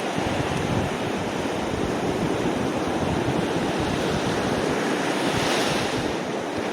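Surf washing onto a beach, with wind buffeting the microphone; the wash swells brighter about five and a half seconds in.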